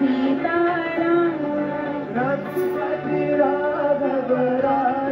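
Hindu devotional song (bhajan): a voice singing a gliding melody over steady instrumental accompaniment.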